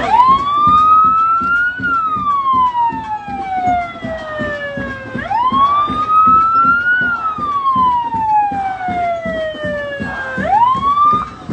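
Emergency-vehicle siren wailing slowly, its pitch rising quickly and then falling slowly in a cycle of about five seconds, twice over and starting a third rise near the end, above street crowd noise.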